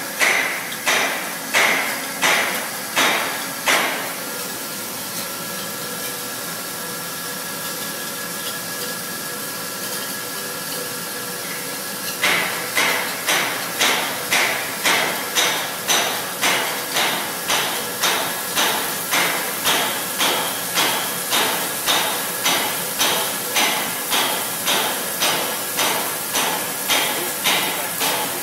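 CNC mill slotting P20 steel with a 3/8-inch four-flute AlTiN rougher-finisher end mill, coolant flowing, heard as an even rhythmic pulsing about one and a half times a second. For about eight seconds a few seconds in, the pulsing stops and only a steady machine noise with a faint whine remains; then the pulsing resumes.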